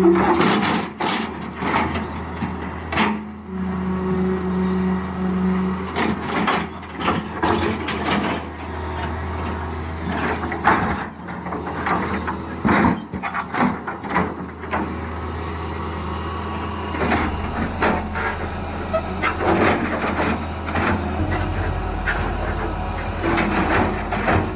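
Heavy truck engine running under a string of sharp knocks and clanks, with a steady pitched tone for about two seconds a few seconds in.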